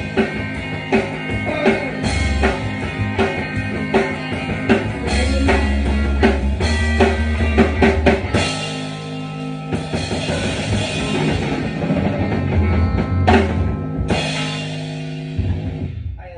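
Rock band playing: drum kit, bass and electric guitar drive through the end of the song, closing with a final hit about thirteen seconds in and a chord left ringing and fading out.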